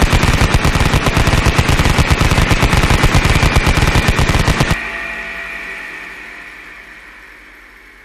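A sustained burst of rapid machine-gun fire that stops abruptly about five seconds in, leaving a steady high whine that fades slowly away.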